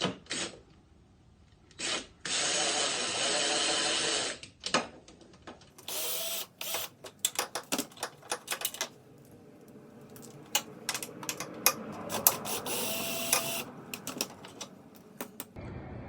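Cordless drill running steadily for about two seconds, turning a 13 mm socket to back out the winch and fairlead mounting bolts. After it come scattered clicks, knocks and rattles of tools and hardware being handled.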